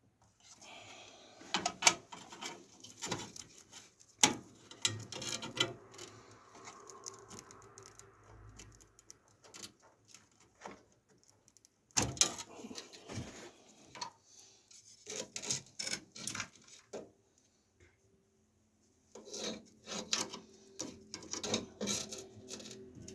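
Parts being handled and fitted by hand: irregular knocks, clicks and rubbing or scraping, with a few sharp knocks and a short pause about three quarters of the way through.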